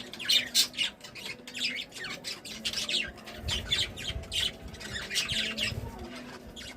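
Budgerigars chattering, with a stream of quick, short chirps and squawks. A low rumbling comes in around the middle.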